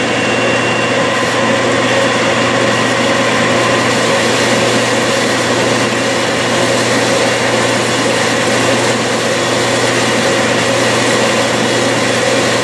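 Metal lathe running steadily at about 700 rpm as a high-speed steel tool, fed by hand, takes the final cut on an aluminum workpiece: an even whir with a low hum and a few faint steady tones.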